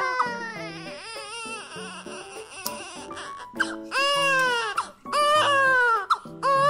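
An infant crying in long, wavering wails, softer at first and then several loud cries from about four seconds in, over background music.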